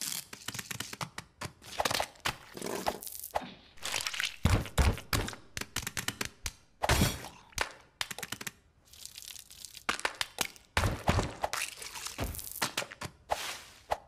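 Cartoon sound effects of a sandwich being built from real food: a fast, irregular run of cracks, crunches and crinkles as the fillings are crushed and piled on, with a few dull thunks.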